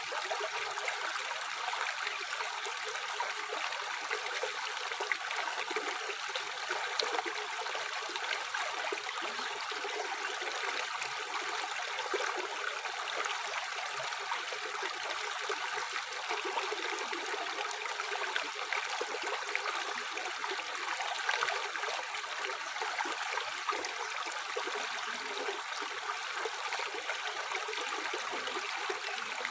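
Tap water running steadily into a sink, an even splashing rush without pause.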